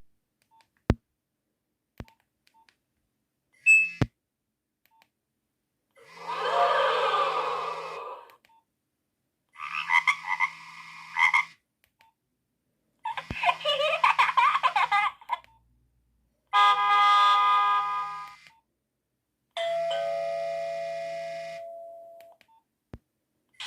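Nokia 1110i phone speaker playing five short electronic tones one after another, each about two seconds long with a gap of silence between, preceded by a few faint clicks. The last tone fades away slowly.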